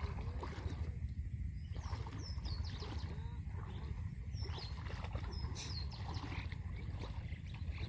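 Steady low rumble with water sloshing and splashing around a man wading through the river as he hauls in a net, and faint short bird chirps every second or so.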